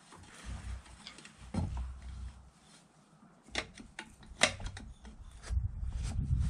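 Hand tools and parts being handled: a few sharp clicks and knocks, the loudest about four and a half seconds in, with low rumbling near the end.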